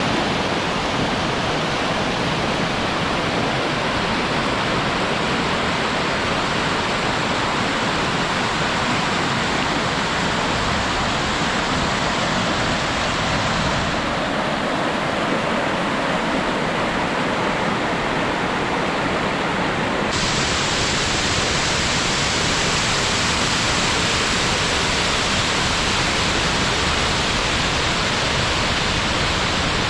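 Waterfall: a loud, steady rush of falling water. The sound turns brighter and hissier about two-thirds of the way through.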